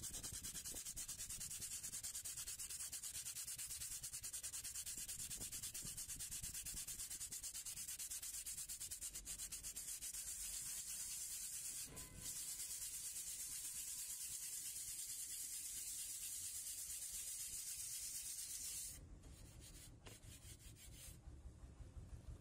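Sandpaper rubbed by hand in rapid short strokes over a patch of beige filler on a laptop lid, sanding it flush. It pauses briefly about halfway and stops a few seconds before the end.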